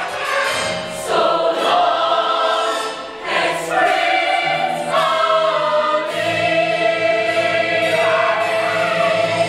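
A youth musical-theatre chorus singing together with musical accompaniment, the many voices moving through a phrase and then holding one long note from about six seconds in.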